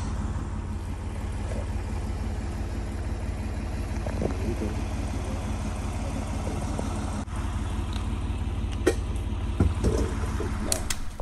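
Engine running steadily with a low rumble, with a few sharp clicks near the end.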